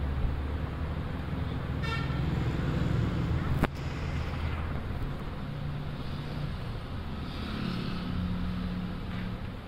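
Road traffic running steadily, with a brief vehicle horn toot about two seconds in and a sharp click shortly after.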